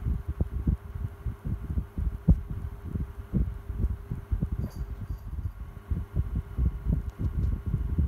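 Tronic desk fan running: its airflow makes an uneven, gusting low rumble over a faint steady hum.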